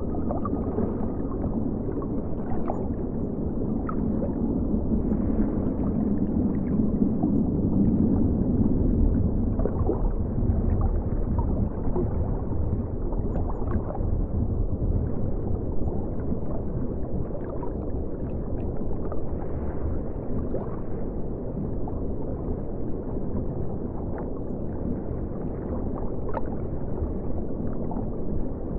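River water flowing steadily with a low, muffled gurgle, broken by scattered faint ticks and pops.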